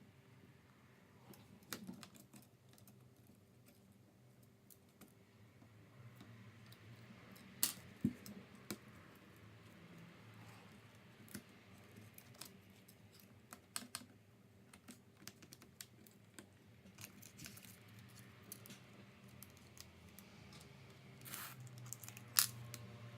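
Faint, irregular small clicks and taps of hard plastic and metal: laptop parts and small tools being handled while a MacBook Pro is taken apart. There is a low steady hum underneath.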